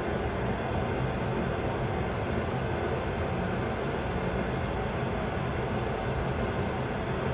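Steady rushing cockpit noise with a low hum in a Boeing 737 flight simulator on an engine-out glide approach: simulated airflow noise over the cockpit with no engine sound.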